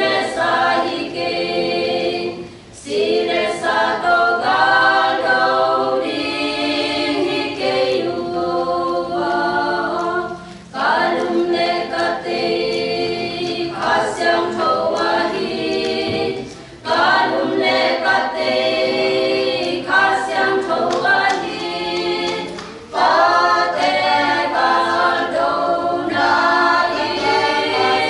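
Small women's choir singing a cappella, phrase after phrase, with brief pauses between phrases.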